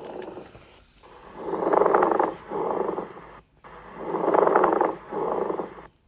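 Pleural friction rub heard through a stethoscope: a rubbing sound like leather being rubbed, on both the breath in and the shorter breath out, repeating about every two and a half seconds. It is the sign of the pleural layers, coated with exudate, rubbing against each other.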